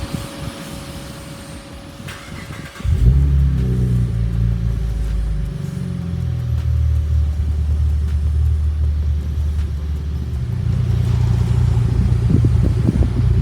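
A 2010-15 Chevrolet Camaro 3.6-litre V6 is started about three seconds in, heard through a stainless-steel MRT Version 2 axle-back exhaust. It catches and then idles with a deep exhaust note, and the note shifts a couple of times as it settles.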